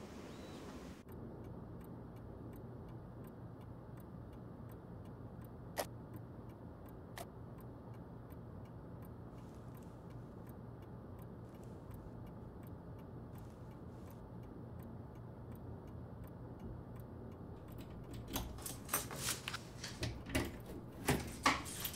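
A clock ticking steadily in a quiet room over a low hum. Near the end, louder irregular clicks and knocks come in.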